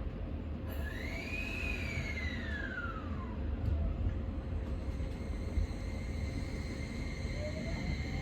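Keio Liner electric train running, heard from inside the carriage: a steady low rumble of wheels on rail. About a second in, a whine from the traction motors and inverter rises and then falls away, and another whine starts rising near the end.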